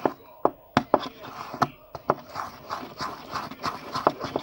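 Sticky homemade slime being squeezed and kneaded by hand, with a wet rustling squish and irregular sharp pops and clicks as it sticks and pulls away from the fingers.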